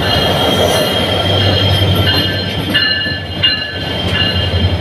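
Train running through a station: a steady low rumble and hum with high, steady ringing tones above it.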